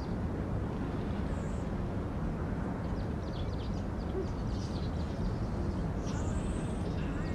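Outdoor ambience: a steady low rumble of wind on the microphone, with faint bird chirps in the middle and a brief high whistle near the end.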